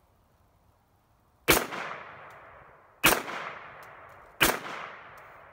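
Three semi-automatic shots from a 10.5-inch 300 AAC Blackout AR-15 pistol, about a second and a half apart, each with a heavy thump and a fading echo.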